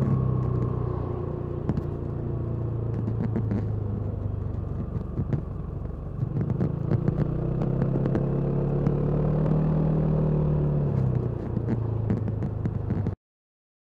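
Kymco Downtown 350i scooter's single-cylinder engine through its stock exhaust, heard from the rider's seat: the engine note falls at the start as the scooter slows, runs low for a few seconds, then rises again about six seconds in as it accelerates, holds, and eases off near the end, with wind noise throughout. The sound cuts off suddenly just before the end.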